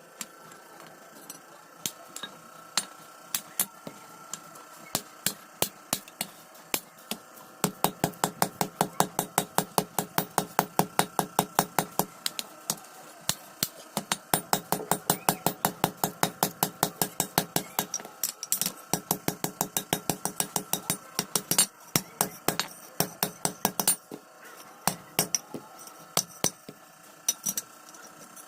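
Hand hammer striking iron on an anvil in forging, ringing blows. A few scattered strikes at first, then a fast, steady run of about four blows a second with a short pause partway, before it slows to scattered strikes near the end.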